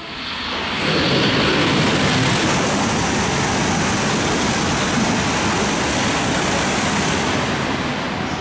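E6-series Komachi Shinkansen coupled to an E5-series set passing through a station at high speed without stopping: a steady rush of wheel and wind noise that swells in about a second in, holds, and slowly eases as the train draws away.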